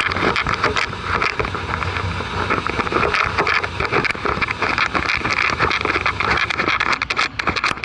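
Old truck's engine idling as it warms up after a cold start, heard through a camera on the hood, with a steady rumble and a fast irregular clicking rattle.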